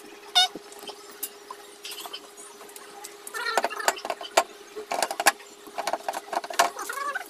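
Clicks and light knocks of a TV stand leg being pushed and fitted into the bracket at the bottom of a flat-screen TV, coming in a run from about halfway through, over a steady hum.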